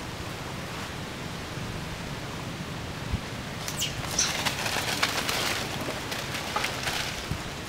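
Macaques scrambling over dry leaves and dirt: scuffling and crackling that starts about halfway in, with a couple of short high squeaks, over a steady outdoor hiss.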